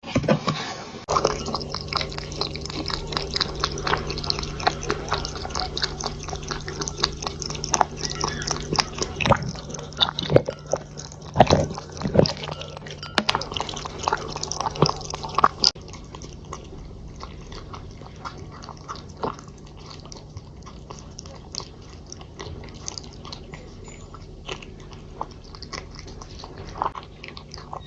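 A Dragon Li cat licking and chewing leftovers off a dish: quick, wet lapping and small clicks against the dish, busier and louder in the first half, over a steady low hum.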